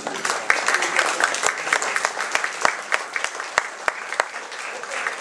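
Audience applauding, a dense patter of many hands, with a few sharper, louder claps standing out.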